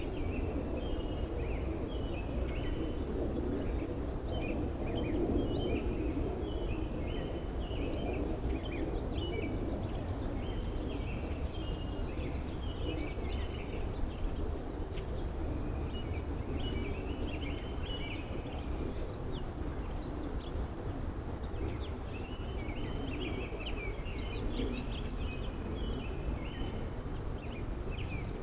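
Small birds chirping in groups of quick notes in the trees overhead, pausing now and then, over a steady low rumble.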